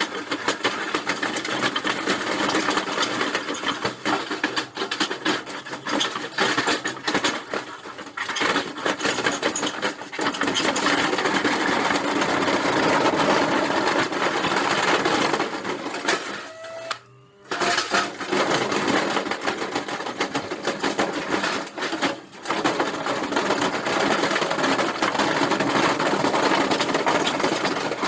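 Washing machine running and clattering hard, a rapid continuous mechanical rattle as it shakes itself apart, with a brief break about 17 seconds in.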